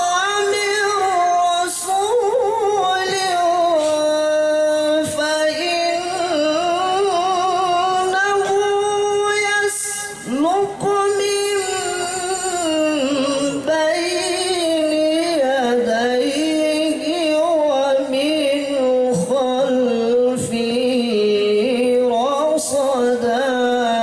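A male qari chanting the Quran in the melodic competition style, holding long ornamented notes that glide up and down. There is a short breath-break about ten seconds in, followed by a new phrase that opens with a rising sweep. The phrase ends right at the close.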